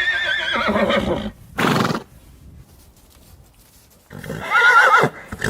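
Horse whinnying twice: a wavering call that falls in pitch, a short breathy burst, then after a pause a second wavering whinny near the end.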